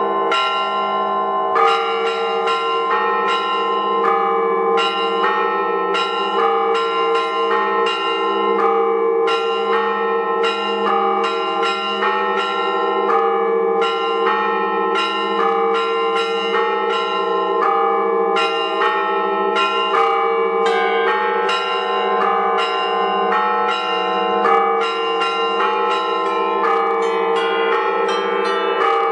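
Many bells of a ringer's belfry rung together in a continuous peal: quick, overlapping strokes of higher bells, a few a second, over the steady ringing of lower bells.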